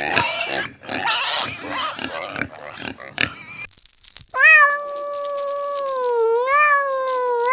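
Pigs squealing and grunting together, breaking off a little over halfway through; then a cat gives one long drawn-out meow that sinks slowly in pitch, rises briefly and sinks again.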